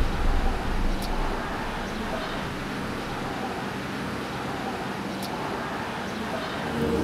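Steady road-traffic hum. Near the end an engine comes in and grows louder.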